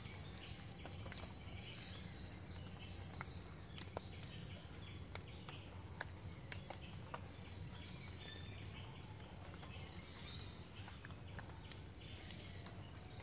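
Forest ambience: a chorus of calling insects chirping in repeated pulses, with a steady high-pitched insect whine and a few faint clicks.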